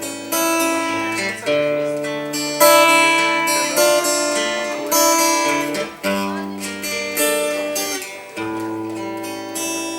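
Instrumental intro of a song: guitar chords change every second or two over a sustained bass line, with no vocals.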